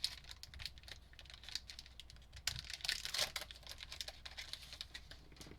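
A trading-card pack being opened and its cards handled: the wrapper crinkles and the cards give off a run of light, quick clicks and rustles.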